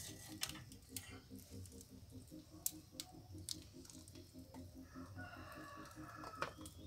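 A few light metal clinks from a ladle and a sinker mould as molten lead is poured, with a rooster crowing faintly about five seconds in.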